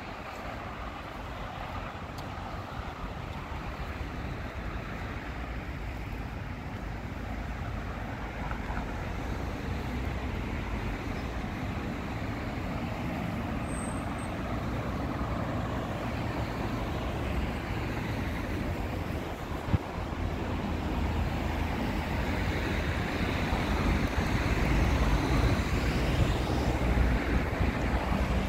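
Road traffic going by: a steady rumble and hiss that grows louder toward the end. A single sharp click about two-thirds of the way through.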